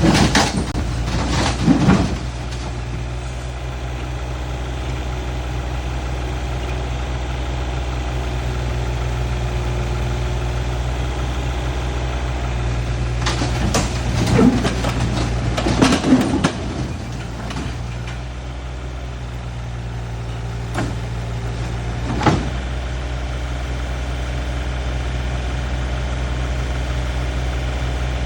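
Excavator engine running steadily at a low, even pitch. Bursts of clanking come near the start and again around the middle, followed by two sharp single knocks.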